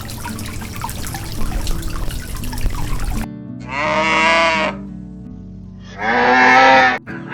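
A cow mooing twice, two calls of about a second each, after about three seconds of steady noise.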